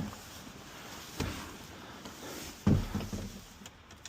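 Handling clunks: a sharp knock a little over a second in and a louder, heavier knock about two and a half seconds in, over a low steady hiss.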